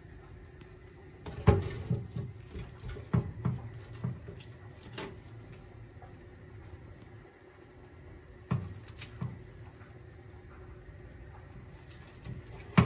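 Metal tongs clacking and scraping against a metal oven grill tray as pieces of grilled chicken are turned. The sharp knocks come in a cluster between about one and a half and three and a half seconds in, again around five seconds and eight and a half seconds, and loudest at the very end, over a faint steady hum.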